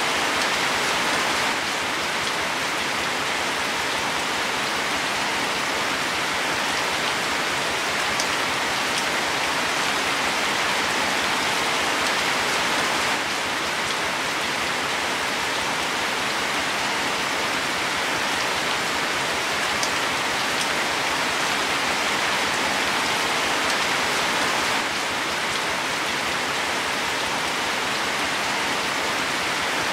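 Steady rain falling on plant leaves: an even hiss of many drops.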